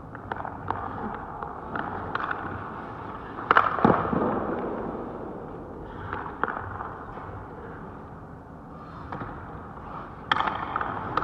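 Hockey goalie's skates scraping and carving the ice, broken by sharp cracks and knocks of his gear striking the ice that echo around the rink. The loudest crack comes about three and a half seconds in, with more around six seconds and a cluster near the end.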